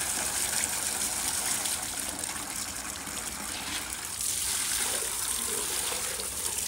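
Running water gushing steadily, as something is rinsed a second time to get it clean.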